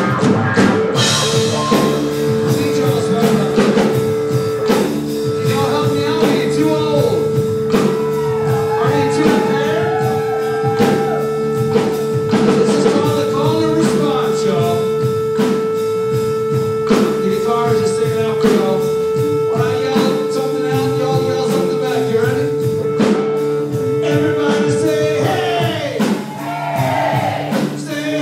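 Live blues-rock band playing: electric guitar, electric bass and drum kit. A single note is held steady through most of the passage.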